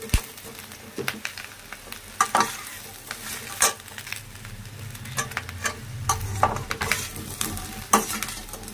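A perforated steel ladle scraping and clinking against a steel kadai as fried cabbage Manchurian balls, onion and capsicum are stir-fried on high flame, with a sizzle of hot oil beneath. The scrapes come irregularly, about one a second.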